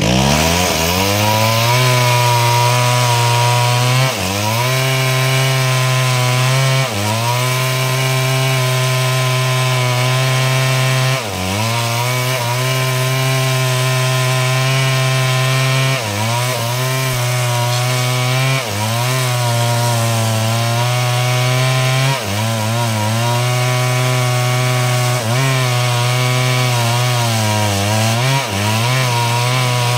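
Stihl two-stroke chainsaw running at full throttle, ripping a log lengthwise into planks. Its engine note stays loud and steady but dips briefly in pitch and recovers about every three to four seconds.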